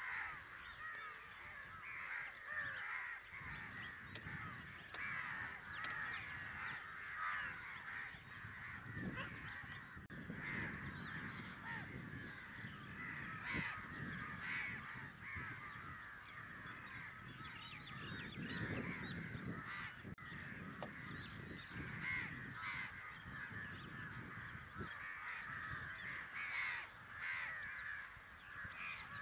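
A large flock of crows cawing and chattering over one another without a break, many birds at once. Now and then there is a low rustling.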